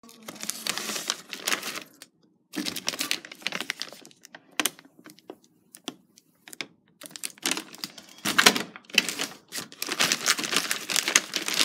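Crinkling and crackling of plastic shrink-wrap and thin plastic water bottles being handled, in bursts with short quiet gaps, busiest and most continuous in the second half.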